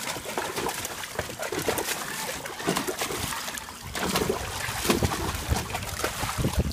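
A border collie splashing and sloshing about in water as he bathes himself: an irregular run of splashes, with some stronger splashes in the second half.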